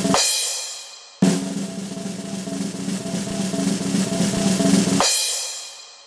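Snare drum roll punctuated by cymbal crashes: a crash right at the start rings away over about a second, the roll starts again abruptly, and a second crash comes about five seconds in and fades the same way. It is the drum-roll-and-crash reveal effect.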